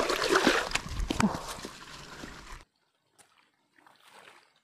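A large snakehead thrashing and splashing in shallow water at the bank as it is dragged out by hand, with a short shout about a second in. The splashing stops abruptly about two and a half seconds in, leaving only faint scattered sounds.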